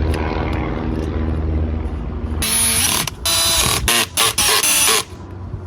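A steady low mechanical hum, then, about halfway through, several loud bursts of compressed air hissing with short breaks between them, during work on an aircraft wheel and inner tube.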